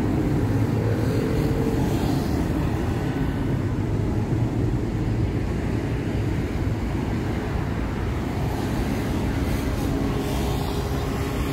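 Miami Metromover people-mover car in motion: a steady low rumble of running gear with a faint humming tone, heard from inside the car.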